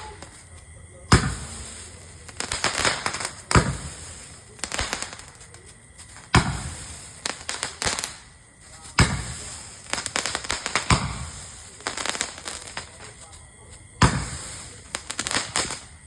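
Tet fireworks from a flashing fireworks rack going off: a sharp bang about every two to three seconds, each followed by a spell of rapid crackling pops that fades away.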